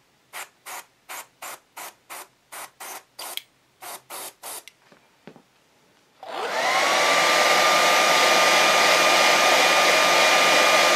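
Airbrush hissing in a dozen or so short spurts, about three a second, as paint is dabbed on. About six seconds in, a hair dryer switches on, its motor whine rising quickly to a steady pitch, and blows loudly to dry the freshly airbrushed paint.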